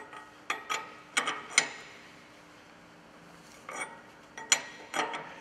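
Spanner on a steel rock bolt nut being tightened down onto the crush washer and load-sensing washer: short groups of sharp metallic clicks and clinks, with a pause of about two seconds in the middle.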